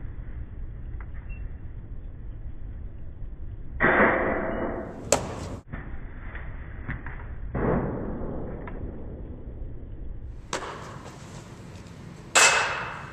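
Baseballs smacking into a catcher's mitt several times, each sharp pop echoing briefly, the loudest about four seconds in and near the end, over a steady low rumble.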